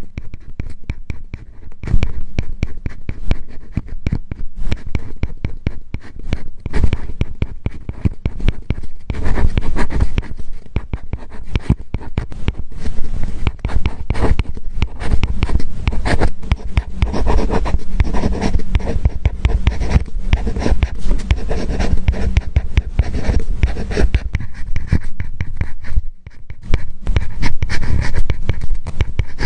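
Apple Pencil tip writing on an iPad fitted with a paper-like matte screen protector: a dense, irregular run of scratchy strokes and tip taps, with a brief pause near the end.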